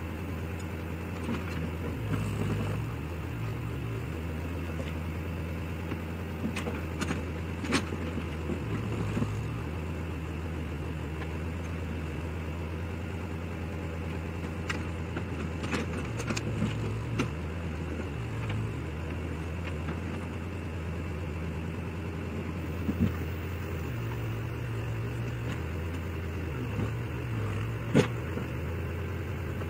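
Ford 420 backhoe's engine running steadily while it digs a trench, its pitch stepping up and back down several times as it works. A few sharp knocks sound over it, the loudest near the end.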